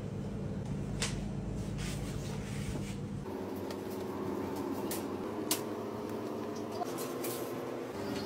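A steady low hum of a machine or electrical appliance, with a few light clicks as the knife and cake are handled on the counter.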